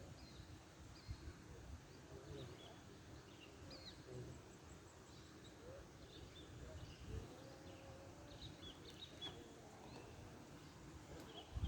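Faint outdoor ambience: scattered short bird chirps, high and brief, come and go over a low background rumble.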